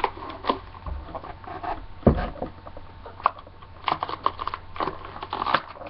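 Plastic toy packaging rustling and clicking as it is handled to work a doll loose, with irregular small clicks and one louder knock about two seconds in.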